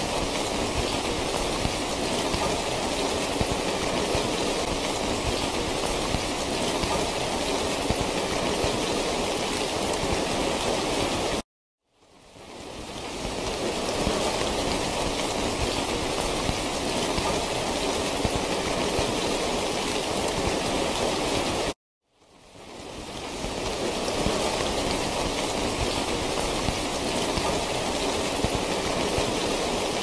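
Steady rain falling, a dense even hiss. It cuts out to silence twice, about eleven and a half and twenty-two seconds in, each time fading back up over a second or two, where the recording loops.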